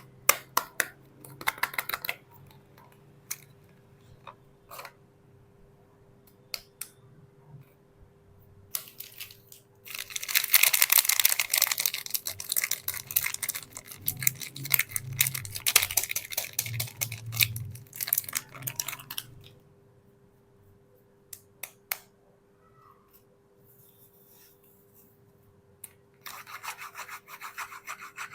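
Hands unwrapping bars of soap: packaging crinkles, rubs and tears, with a long stretch of dense rustling about a third of the way in and more near the end, and scattered taps and clicks between. A faint steady hum runs underneath.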